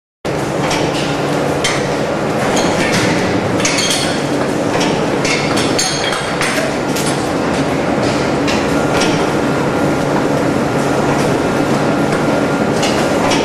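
Meat-processing factory machinery running steadily, with frequent metallic clinks and clatter over a constant hum. It starts abruptly just after the start.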